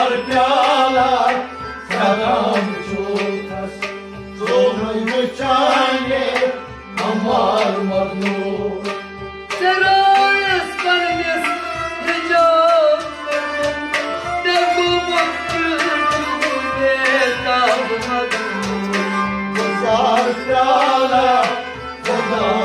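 Sufi devotional song (kalam) performed live: a man's voice singing a long, gliding melodic line over sustained harmonium chords, with a steady hand-drum rhythm and plucked strings.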